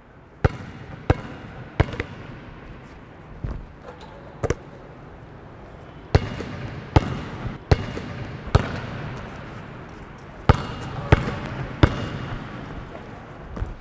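Basketball bouncing on a hard gym floor as it is dribbled, in runs of three or four bounces about two-thirds of a second apart, each bounce echoing in a large hall.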